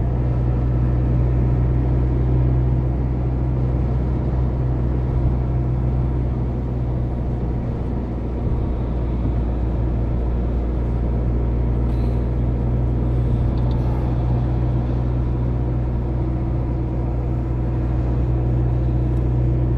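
Car driving, a steady low engine and road drone with no change in pitch.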